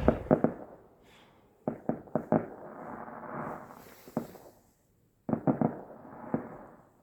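Fireworks display going off: quick clusters of sharp bangs and cracks, in about four groups, with an echoing rumble between them.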